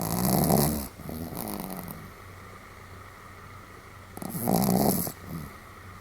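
Pomeranian snoring: two loud, rasping snores about four seconds apart, each followed by a softer breath.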